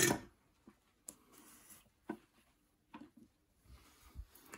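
Scattered faint clicks and taps of hands and tools handling a guitar control plate and switch, with a sharper knock at the very start.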